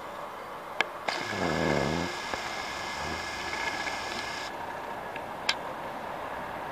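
Camcorder zoom motor whining steadily for about three and a half seconds, starting and stopping abruptly, with a click before it and another after, over steady street background noise. A brief low rumble falling in pitch sounds near the start of the whine.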